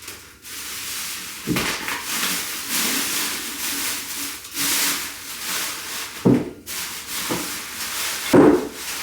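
Rustling and rubbing as packaging and decor items are handled, with a few short knocks about a second and a half in, past six seconds and near the end.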